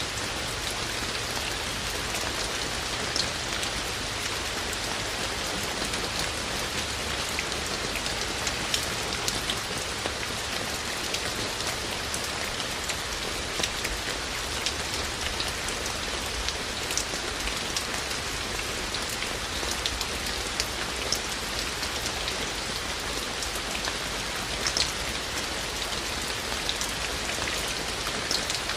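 Steady rain falling: a constant even hiss with scattered sharper drops ticking through it.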